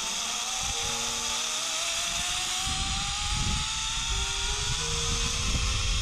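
Zipline trolley pulleys running down the steel cable, a whine rising steadily in pitch as the rider gathers speed. Wind rushes over the microphone, buffeting more heavily from about three seconds in.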